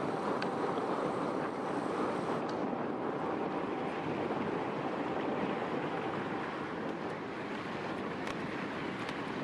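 Steady wash of wind and water with a faint, even engine hum from the container ship and its tugs passing close by.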